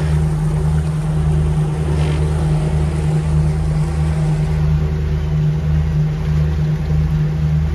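Motor yacht's inboard engines running steadily underway, a deep drone with a slow, regular throb.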